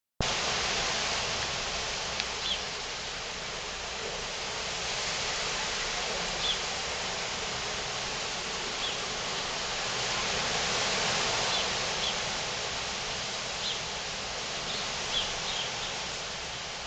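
Steady hiss of thunderstorm rain falling, with a few brief high chirps over it.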